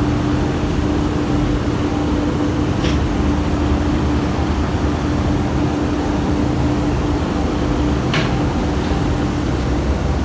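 Steady loud industrial roar with a constant low hum, from a ferronickel smelting furnace during tapping. Two brief high squeaks come about three and eight seconds in.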